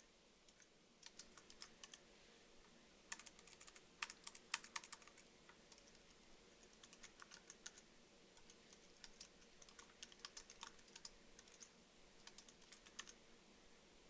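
Typing on a computer keyboard: faint, irregular key clicks in short runs, with the quickest and loudest flurry about four seconds in.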